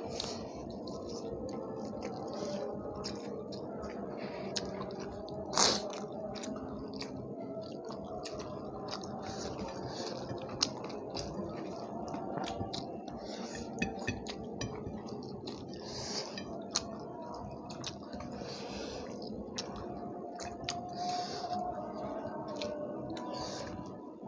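Close-miked mouth sounds of people eating rice and curry by hand: steady chewing and lip smacks with many small clicks, and the wet squish of fingers mixing rice into the curry on the plates. One sharper, louder click comes about five and a half seconds in.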